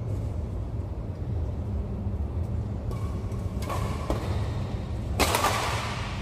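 Steady low hum with the sounds of a badminton rally: racket hits on a shuttlecock, then about a second of loud rushing noise a little after five seconds in.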